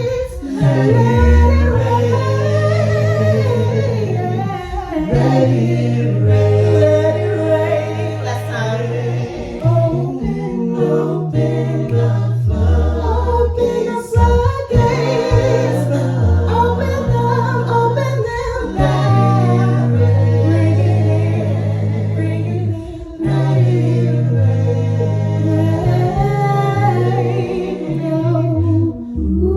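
A cappella gospel choir singing in several voice parts, with a sustained low bass line under the harmonies.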